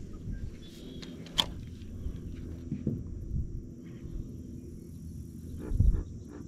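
Knocks and handling noise in a fishing boat: a sharp click about a second and a half in and a heavier low thump near the end, over a steady low rumble and a faint high insect drone.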